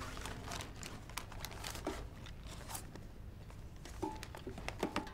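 Fabric rustling and crinkling as clothes are folded and packed into a suitcase, with a few light knocks about four seconds in, like wooden hangers being handled.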